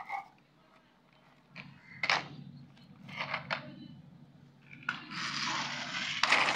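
Plastic toy trucks handled and pushed on a concrete floor: a few short sharp clacks, then a longer rough scraping from about five seconds in.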